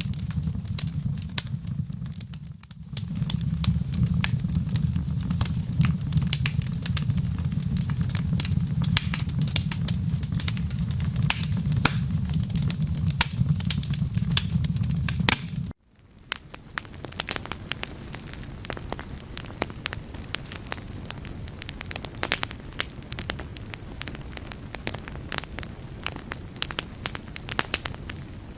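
Wood fire crackling with dense sharp pops, over a low rumble. About two-thirds of the way through, the sound cuts off abruptly and resumes quieter, with the crackling but without the rumble.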